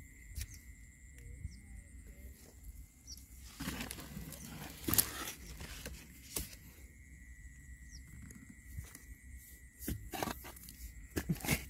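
Scattered knocks, scrapes and crunches of a wooden stick digging into dry, caked mud and of dry lotus leaves being handled, with a denser rustling, crunching stretch about four to five seconds in and a few sharper knocks near the end.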